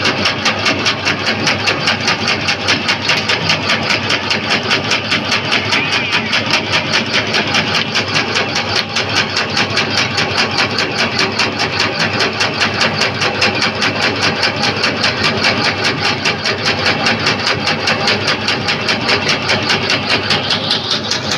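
Motor-driven machine grinding and mixing meat into meatball paste, running steadily with a fast even pulsing.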